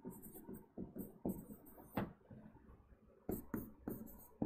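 Faint taps and scratches of a stylus writing on an interactive display board, with a few sharper clicks as the pen strikes the screen.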